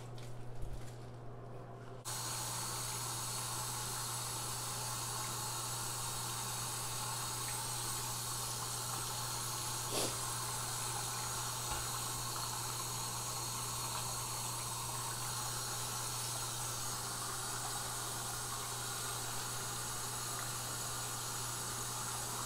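Bathroom tap running into a sink: a steady hiss of water that starts suddenly about two seconds in, with one short click about halfway through as glass pipes are rinsed under it.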